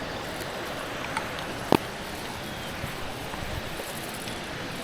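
Steady rushing of flowing river water, with a single sharp click about two seconds in.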